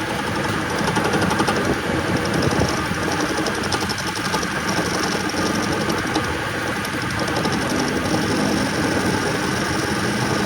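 Metal lathe running steadily, with a fast, even mechanical ticking over its hum.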